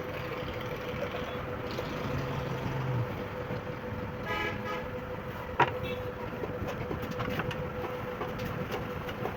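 Background vehicle noise with a steady hum, a short horn toot about four and a half seconds in, and a single sharp click about a second later.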